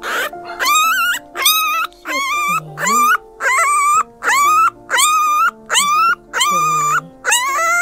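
Newborn puppy crying for its mother: a fast run of short, high, wavering cries, nearly two a second.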